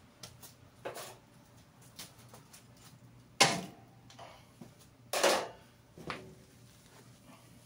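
Handling knocks and clunks on a metal-topped workbench as the headliner board and spray-adhesive can are moved: a few light taps, then two louder clunks about three and a half and five seconds in, and a smaller one just after six seconds.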